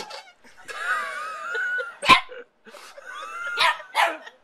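Dog barking sharply three times, with a long wavering whine about a second in and a shorter one just before the last barks.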